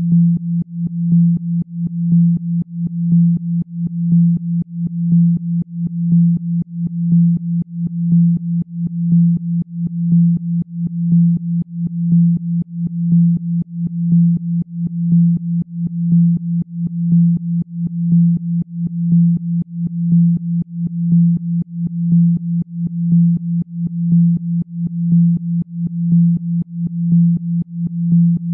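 A synthesized low pure tone, a Rife-style healing frequency, held at one steady pitch and pulsing in loudness at an even rhythm of about two pulses a second.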